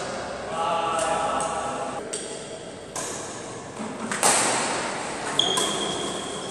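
Badminton rally in a reverberant hall: sharp racket-on-shuttlecock hits about once a second, the loudest a smash about four seconds in. Brief voices in the first second or so, and a steady high squeak near the end.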